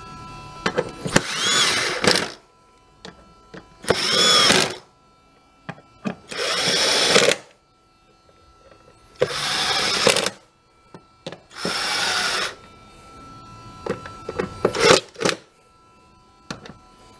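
Cordless drill-driver with a T25 Torx bit running in five short bursts of about a second each, driving the air filter housing cover's Torx screws back in. Small clicks come between the bursts, and a few shorter bursts follow near the end.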